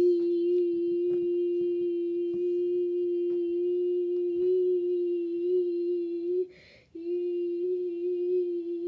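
A person humming one steady, unchanging note, breaking briefly for a breath about six and a half seconds in, then holding the same note again. Faint clicks sound underneath.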